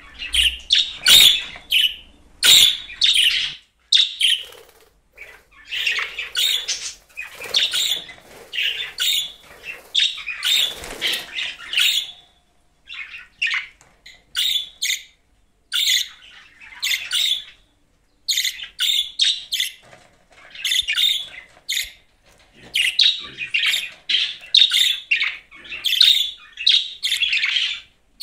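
Budgerigar chattering in rapid, high chirps that come in bursts, with a few short pauses.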